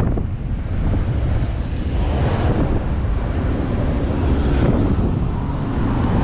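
Wind rushing over the microphone on a moving boda boda motorcycle taxi, with the motorcycle's engine running underneath.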